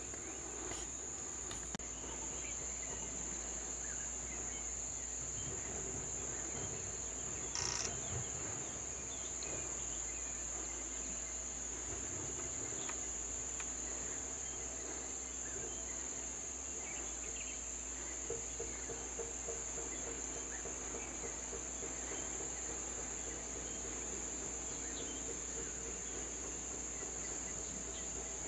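An insect's steady, high-pitched trill, unbroken throughout, with one short click about eight seconds in.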